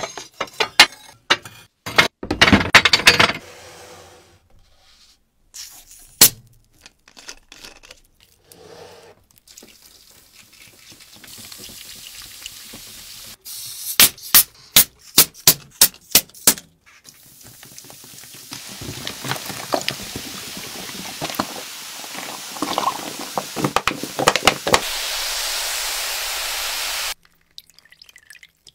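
A few sharp knocks as a rusty metal object is handled in a plastic tub, then a quick run of about eight sharp clicks as a row of plastic Coca-Cola bottles is handled. After that comes a long stretch of liquid pouring with a steady hiss that cuts off suddenly near the end.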